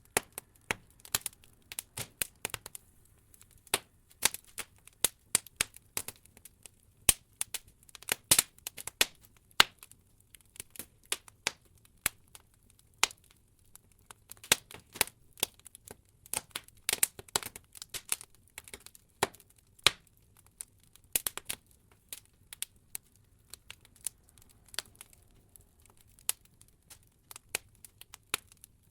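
Open wood-log fire crackling: irregular sharp pops and snaps of burning logs, some much louder than others, several a second at the busiest.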